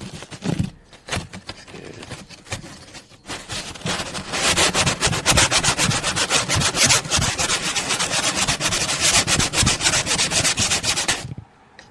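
Pitted fog-light lens rubbed by hand across coarse 120-grit sandpaper, grinding off the pitted top layer. A few scattered scrapes at first, then from about four seconds in a fast run of back-and-forth sanding strokes that stops abruptly near the end.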